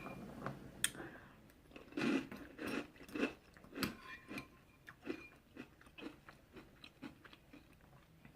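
Close-miked chewing and mouth sounds of someone eating chunky soup, with irregular smacks and small crunches a few times a second.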